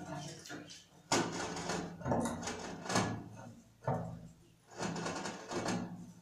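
A metal tool scraping at the joint along the edge of a stone countertop slab, in about six short strokes, each starting sharply.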